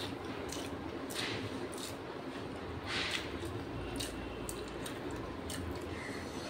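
Hands squishing and mixing rice with curry on a metal plate and a banana leaf, with scattered short clicks and smacks of eating and two brief hissy rustles.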